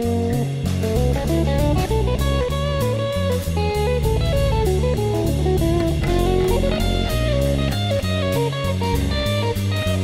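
Instrumental jazz fusion from a guitar trio: electric guitar playing a melody that steps from note to note, over bass guitar and a drum kit whose cymbals keep a steady beat of about four ticks a second.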